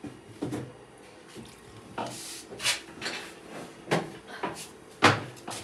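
Knocks and clatter of kitchen containers and a cupboard being handled while someone rummages, about eight separate bumps with the sharpest about five seconds in.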